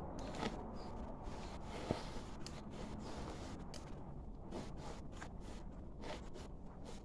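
Denim rustling and scraping as it is handled and positioned at a Union Special 35800 chainstitch sewing machine, with scattered clicks, one sharp about two seconds in, over a steady low hum.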